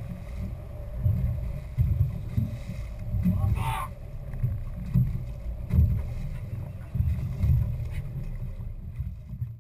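Uneven low rumble aboard an offshore fishing boat at sea, with a short hissing noise about three and a half seconds in; the sound cuts off near the end.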